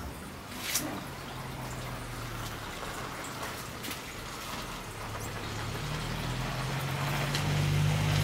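Low engine hum of a motor vehicle, growing steadily louder as it approaches, with a few faint clicks early on.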